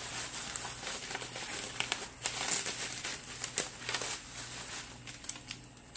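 Packaging crinkling and rustling in irregular handling as a bath bomb is unwrapped, busiest in the first few seconds and thinning toward the end.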